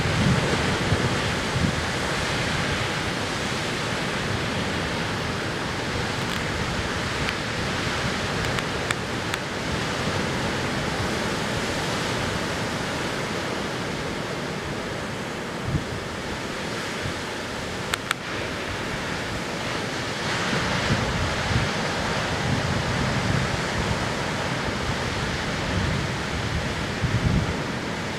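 Heavy ocean surf breaking on a sandy beach, a continuous wash of noise, with wind buffeting the microphone in low gusts now and then.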